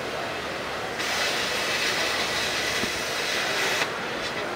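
Handheld plasma cutter cutting steel plate: a loud, steady hiss that starts about a second in and cuts off sharply about three seconds later, over background noise from a busy hall.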